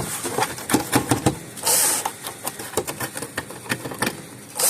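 A power driver clicking and chattering against a stuck, dirt-packed Torx screw in a plastic fence-charger case; the screw is not coming out. A short hiss of canned compressed air comes just under two seconds in.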